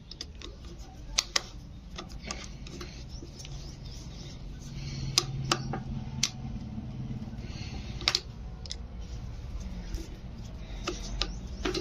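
Screwdriver working the screws of a pedestal fan motor's metal end cover: scattered sharp metallic clicks and scrapes. A low steady hum sits underneath from about four seconds in.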